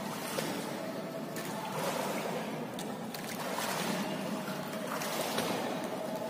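Pool water splashing and trickling as a swimmer's arms stroke through it in backstroke, a steady wash of water noise.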